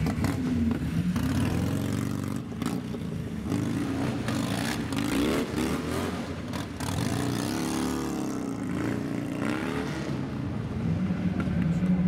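Harley-Davidson V-twin motorcycle engine being revved hard and let fall again, over and over, as it is ridden through stunt tricks; the revs rise and drop several times in the middle.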